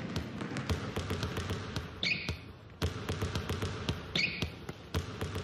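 Basketballs bouncing on a hardwood gym floor in a quick, busy patter, with a short high sneaker squeak about every two seconds.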